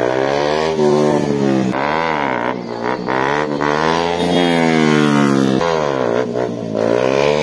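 Motorcycle engine revving hard and falling back again and again, its pitch climbing and dropping every second or two, as the rider works the throttle to hold a wheelie.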